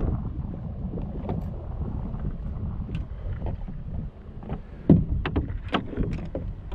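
Wind rumbling on the microphone, with scattered knocks and clicks of gear being handled against a small boat's deck; one louder thump about five seconds in.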